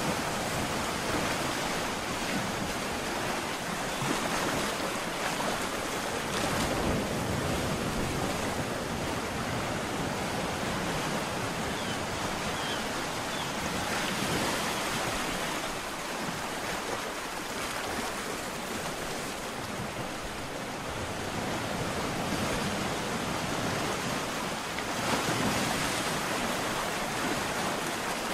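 Ocean surf: waves breaking and washing up the shore in a continuous rush, swelling and easing every few seconds.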